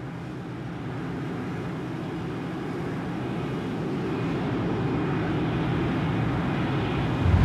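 Jet aircraft engine noise, a steady rumble growing louder throughout, with a low thump near the end.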